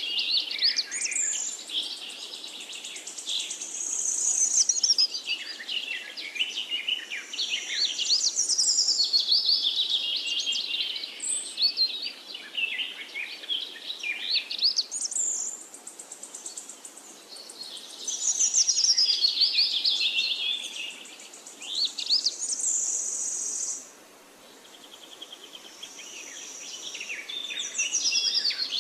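Several songbirds singing at once, a dense chorus of overlapping high chirps and trills. The chorus drops away abruptly about 24 seconds in, then builds again.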